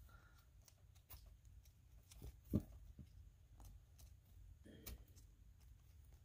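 Faint clicks and rustles of a small plastic doll and its accessories being handled, with a slightly louder click about two and a half seconds in.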